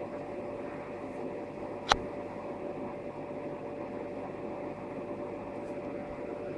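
Steady hum and hiss of background noise, like a fan or appliance running, with a single sharp click about two seconds in.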